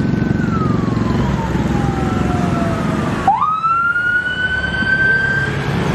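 Emergency-vehicle siren wailing: one long tone slides slowly downward, breaks off abruptly about halfway through, then sweeps upward again. Steady engine noise from passing motorbikes and cars lies under the first half.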